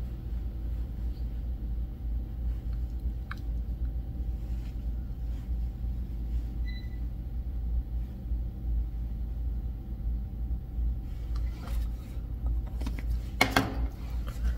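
Steady low hum of room noise with scattered faint clicks and a short rustle near the end.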